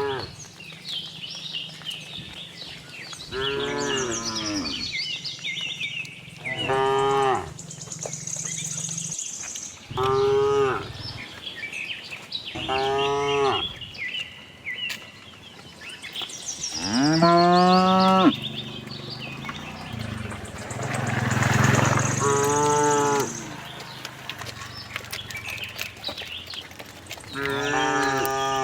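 Cattle mooing, about seven separate moos from the herd, the loudest a long drawn-out moo near the middle. Faint high chirps sound between the calls.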